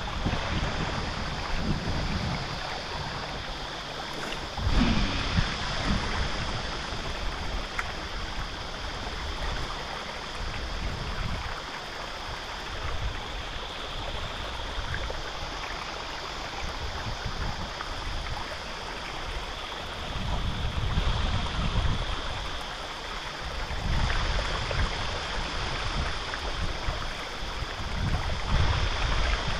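Water running over rocks in a shallow stream channel, with gusts of wind buffeting the microphone several times.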